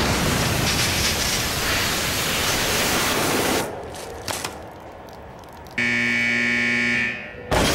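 A hose spraying a jet of water, a loud steady rush lasting about three and a half seconds. Near the end comes a steady buzzing tone for about a second.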